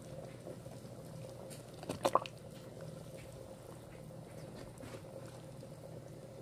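Pot of chicken and ginseng soup simmering, with faint bubbling and small ticks over a steady low hum. A short knock and clatter comes about two seconds in.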